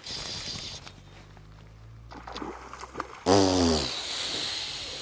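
A hooked trout splashing and thrashing at the water's surface while being played on a light fly rod. About three seconds in, a man lets out a loud, falling exclamation.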